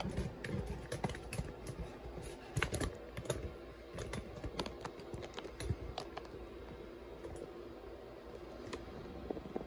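Irregular light clicks and taps, several a second at times, over a low rumbling handling noise from a handheld phone camera being moved around.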